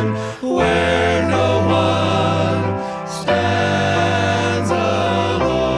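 Southern gospel vocal group singing long held chords in harmony over instrumental accompaniment with a steady bass. There are brief breaks about half a second and three seconds in, as the chords change.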